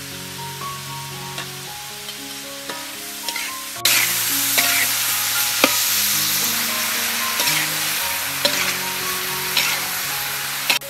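Soft background music, then, starting abruptly about four seconds in, shrimp and sliced sponge gourd sizzling loudly as they are stir-fried in a hot wok. A metal spatula scrapes and clicks against the pan through the sizzle, with a last click just before it cuts back near the end.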